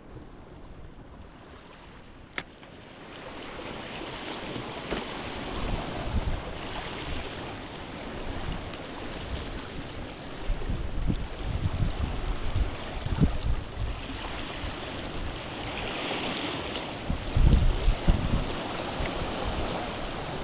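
Sea surf washing on the shore, building after the first few seconds, with gusts of wind rumbling on the microphone, strongest near the end. A single sharp click about two seconds in.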